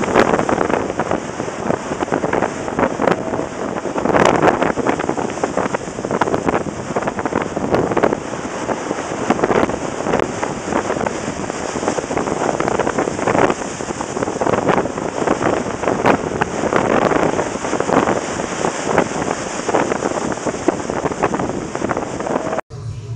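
Strong wind buffeting the microphone in irregular gusts, over the rushing wash of the sea. It cuts off suddenly near the end.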